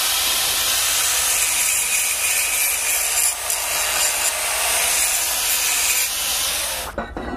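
Oxy-fuel cutting torch cutting steel: the cutting-oxygen jet makes a steady, loud hiss that cuts off abruptly near the end.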